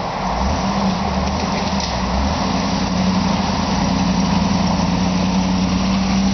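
Hummer H2's V8 engine running steadily at low speed as the SUV crawls toward the microphone, growing a little louder about three seconds in as it comes closer.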